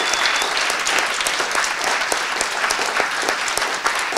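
Audience applauding: many people clapping in a steady, dense patter.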